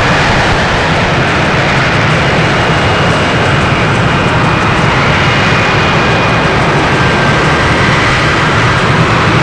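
F-35B Lightning II hovering in vertical-lift mode, its F135 jet engine and shaft-driven lift fan running at high power: a loud, steady jet roar with faint high whining tones.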